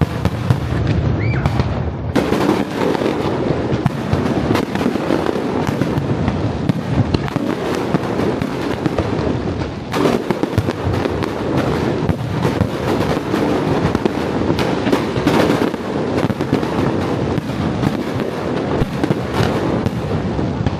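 Fireworks display: a dense, continuous barrage of bangs and crackling bursts, with louder cracks standing out here and there.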